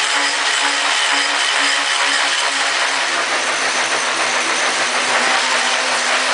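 A motor-driven experimental rotating rig spinning at speed: a steady mechanical whir with a low hum that pulses gently as it turns.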